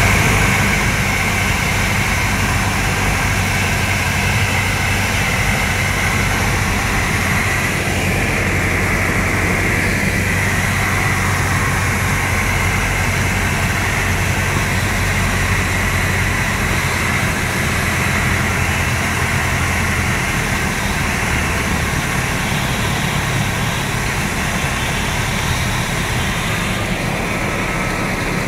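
Cessna 172's piston engine and propeller droning steadily, heard inside the cabin through the landing approach. About two-thirds of the way through, the low hum changes and eases slightly, as the power comes back for the landing.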